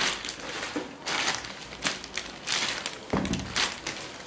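Thin clear plastic bag crinkling and rustling in the hands as it is pulled off a sneaker and bunched up, in several irregular bursts, with a fuller rustle about three seconds in.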